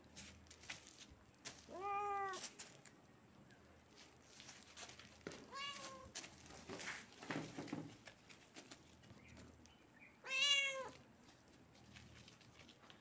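Tabby kitten meowing three times, a few seconds apart; the last meow, about ten seconds in, is the loudest. Small clicks and rustles come between the meows.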